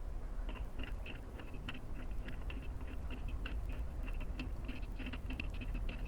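Small bolts being screwed and unscrewed on a screwing board: quick, light, irregular clicking of the threads and parts, starting about half a second in, over a steady low hum.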